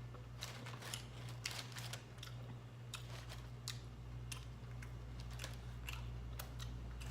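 A person chewing taco with close-up mouth smacking: irregular small clicks scattered throughout, over a steady low hum.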